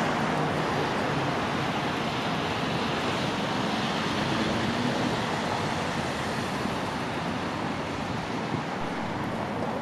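Road traffic noise: a steady wash of passing vehicles that slowly fades.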